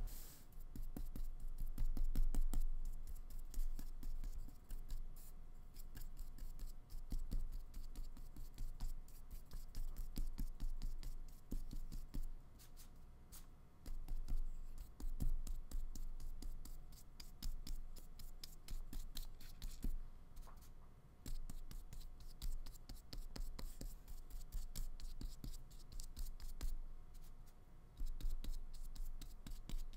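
Flat paintbrush scratching acrylic paint across paper in quick, repeated strokes, with a couple of brief pauses.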